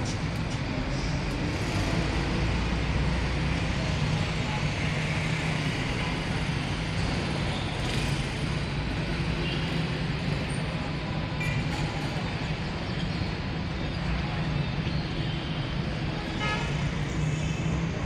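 Steady street traffic noise with a constant low engine hum, broken by a few short high-pitched sounds.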